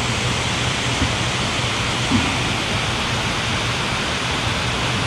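Steady rush of water pouring through the dam, an even loud hiss with a low steady hum underneath.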